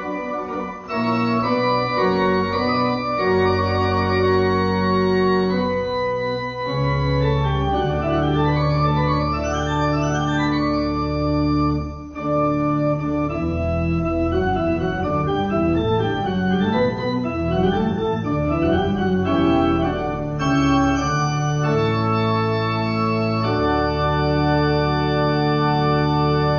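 Organ postlude: sustained full chords changing every second or two, with quicker moving notes in the middle stretch.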